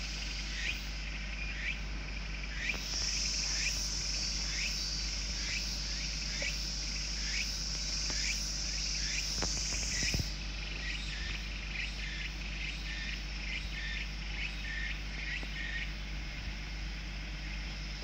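Insects calling: a steady high buzz that swells for several seconds in the middle and then drops back, with short chirps repeating about twice a second throughout.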